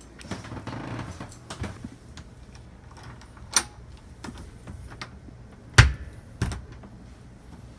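Door hardware being worked: a sharp click as the deadbolt thumb-turn is turned, then two louder knocks about half a second apart as the knob latch is released and the door shifts in its frame.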